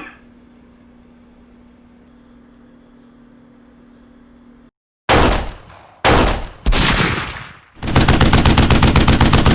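Gunfire: three loud single shots, the second about a second after the first and the third half a second later, then a sustained burst of rapid automatic fire at about a dozen rounds a second. A faint steady hum runs through the first half and cuts off just before the shots.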